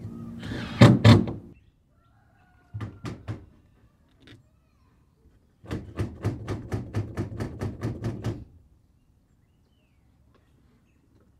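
Sharp strikes on sheet-metal roof panels from a mallet tapping down a cross seam: two loud hits about a second in, three more a couple of seconds later, then a quick run of about a dozen even strikes at roughly four a second.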